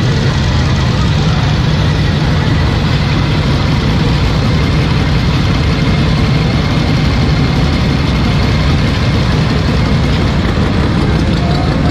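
Harley-Davidson V-Rod with Vance & Hines exhaust and the motorcycles packed around it rumbling steadily as they crawl along at walking pace.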